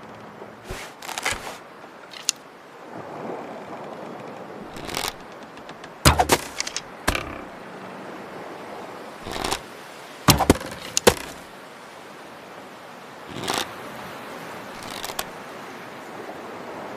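Survival bow and arrows: a series of sharp snaps and knocks spaced a second or more apart, some in quick clusters of two to four, over a faint steady hiss.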